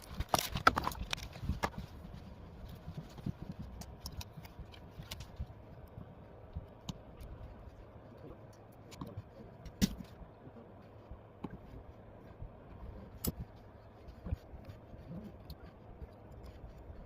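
Scattered small clicks and taps with faint scraping, as a phone and small repair tools are handled during a screen replacement. A quick run of clicks comes in the first couple of seconds, then single sharper ticks about ten and thirteen seconds in.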